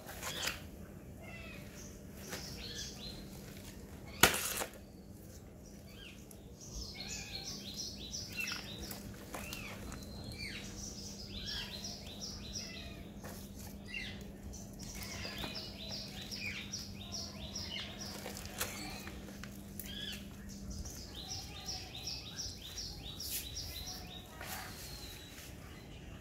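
A bird singing phrases of quick, repeated high notes, several times over. A steady low hum stops near the end, and there is one sharp knock about four seconds in.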